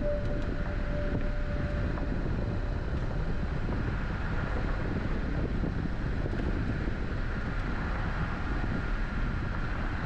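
Steady road and engine noise from a 4WD SUV driving on a dirt mountain road, with wind noise mixed in.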